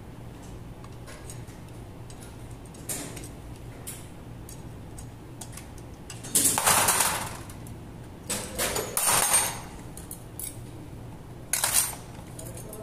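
Metal clutch plates of a Kawasaki Z1000 being pried and slid out of the clutch basket with a hooked pick: light clicks, then three louder bursts of clinking and scraping, about six, eight and eleven and a half seconds in, as the plates come out against each other. The clutch pack is being taken apart to check a clutch suspected of being worn.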